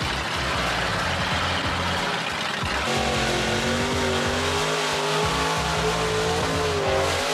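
Off-road vehicle engine revving hard, its pitch rising and falling, over dense steady noise.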